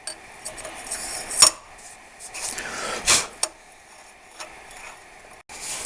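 Metal engine parts (valve and cylinder head) being handled: a sharp metallic clink about a second and a half in, a short scraping rub around three seconds, then another tap and a few faint knocks.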